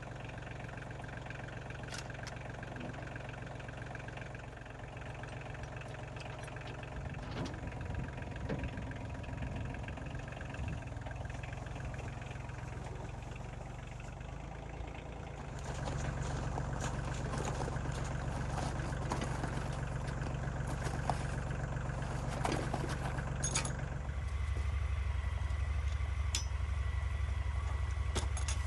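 Tractor engine running steadily, getting louder about halfway through and changing pitch again near the end, with a few sharp clanks over it.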